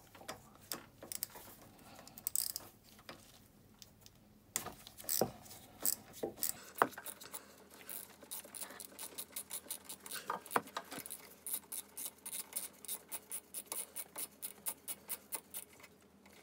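Ratchet wrench undoing a 10 mm bolt that holds a carburetor to the intake manifold of a 125 cc ATV engine: first a few scattered metal clicks and taps, then from about seven seconds in a long, even run of ratchet clicks, several a second.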